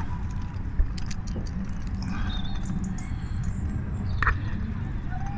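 Outdoor ambience: a steady low rumble with a few sharp clicks and faint bird chirps.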